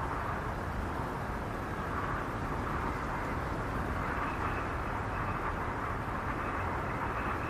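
Snowstorm wind howling: a steady rush that swells and eases, with a faint high whistle in the second half.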